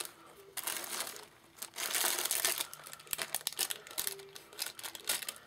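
Clear plastic bag crinkling and rustling as hands rummage through lace trims inside it, in uneven bursts, loudest about two seconds in.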